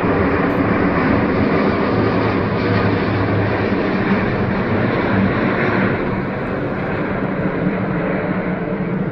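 Air France Airbus A350-900 jet airliner with its Rolls-Royce Trent XWB engines, arriving and passing close by with a loud, steady jet rush and a low hum underneath. The noise eases slightly about six seconds in.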